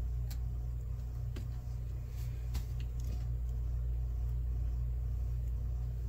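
A steady low hum, with a few faint crisp clicks of baby sulcata tortoises biting into leafy greens.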